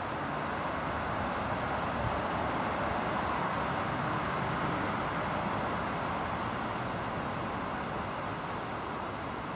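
Steady outdoor rushing noise with a low rumble underneath, even throughout, with no distinct events.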